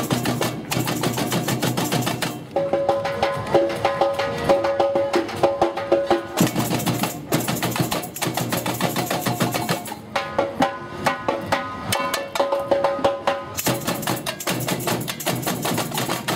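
A street percussion band plays a fast, dense rhythm on tamborims (small hand-held frame drums struck with sticks) and other drums. The pattern shifts briefly several times.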